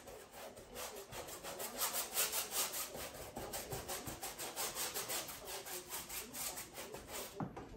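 Paintbrush bristles scrubbing paint onto a stretched canvas in quick, rhythmic back-and-forth strokes, several a second, with a dry scratchy rasp.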